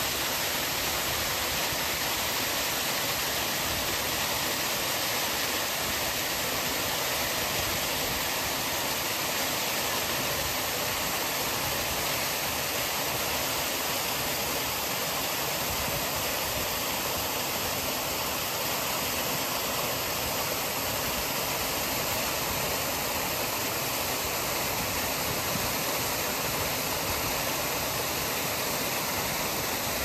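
Fountain water pouring down in a sheet and splashing into the pool below: a steady, even rush of falling water.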